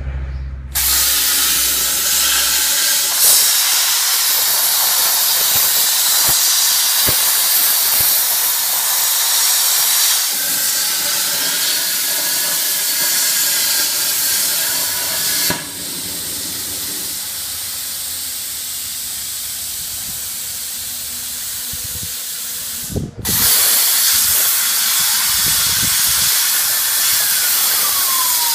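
CNC plasma cutter's torch running: a loud, steady hiss of the plasma arc and compressed air. It drops to a quieter hiss about halfway, cuts out briefly about three-quarters through, and starts again at full level.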